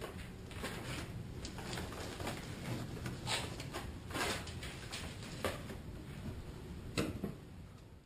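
Hands pressing and rubbing tape onto the seams of EPS foam insulation board, making scattered light knocks, rubs and rustles.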